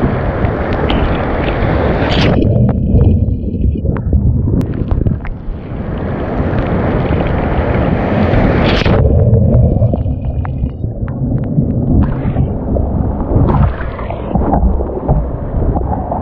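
Surf whitewater rushing and splashing around a sit-on-top kayak being paddled out through the breakers, with heavy wind buffeting on the microphone. The bright hiss drops away abruptly twice, leaving a duller rush.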